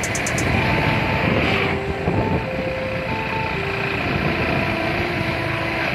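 Steady rush of wind and engine noise from a motorcycle moving at road speed, with a few faint held notes stepping between pitches underneath.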